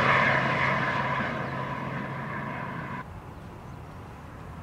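A motor engine's steady drone, slowly fading, that cuts off abruptly about three seconds in.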